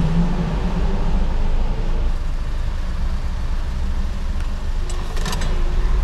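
Car heard from inside the cabin, a steady low engine and road rumble as it rolls slowly up to a toll booth. A few short clicks sound about five seconds in.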